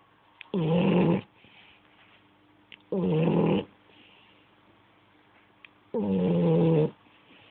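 French Bulldog snoring in sleep: three snores, each under a second long, about three seconds apart.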